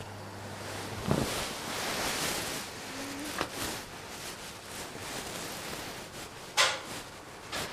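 Camera handling noise: rustling against a fleece blanket and couch fabric, with a few sharp knocks, the loudest about six and a half seconds in.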